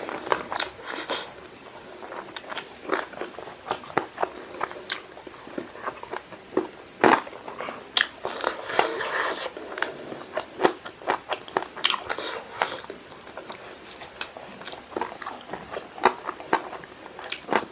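Close mouth sounds of eating spicy chicken wings by hand: irregular wet biting, chewing and lip-smacking clicks, with a few louder ones about seven seconds in.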